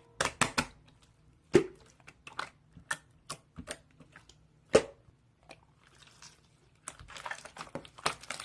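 Slime being pressed and stretched, giving a string of irregular sharp pops and clicks, with two louder pops and a patch of faint crackling near the end.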